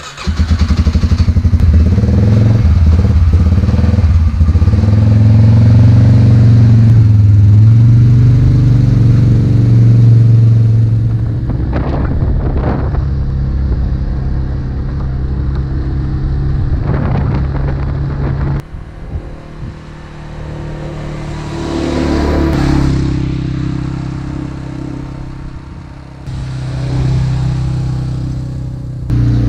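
Can-Am Outlander 400 ATV engine running as the quad is driven along a dirt road, loud and steady at first. The engine sound drops abruptly a little past halfway, then swells and fades once as it passes by.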